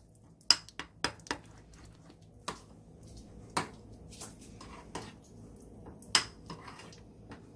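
Metal spoon stirring thick chili seasoning paste in a ceramic bowl, clinking sharply against the bowl in irregular taps about once a second.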